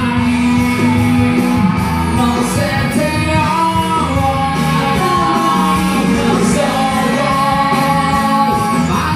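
A singer singing over a karaoke rock backing track with band instruments.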